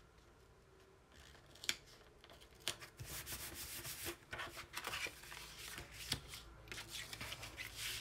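Hands pressing and rubbing a sheet of designer paper flat onto glued cardstock: paper rubbing and rustling, with a few sharp clicks, starting about a second in.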